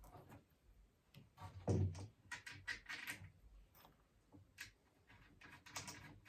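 Faint small clicks and taps of a washer and locking nut being fitted onto a 5/16-inch bolt, with one dull thump just before two seconds in and runs of quick clicks a little later and near the end.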